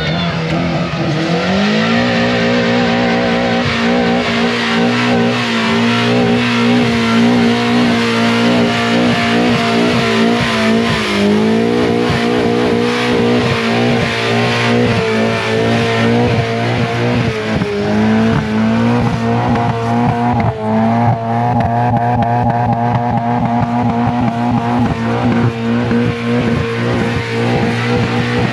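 Car engine held at high revs through a long burnout, the tyres spinning against the pavement. The revs climb in the first couple of seconds, then hold steady, with brief dips about 11, 17 and 20 seconds in.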